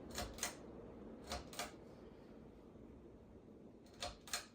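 Wall switches for a ceiling fan and its light being flicked, giving three pairs of sharp clicks: near the start, about a second and a half in, and near the end.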